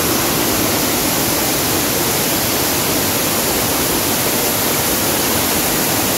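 A monsoon-swollen waterfall rushing in full flood: a loud, steady roar of falling water.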